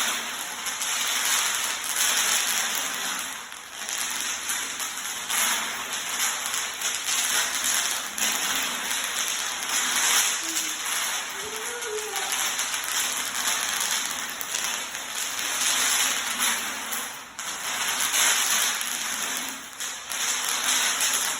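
Bubble wrap popping under a hoverboard's wheels: a dense, continuous crackle of many small pops, like rain.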